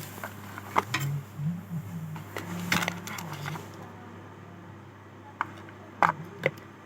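A handful of sharp clicks and taps over a low intermittent hum, the loudest clicks coming in a quick pair near the end.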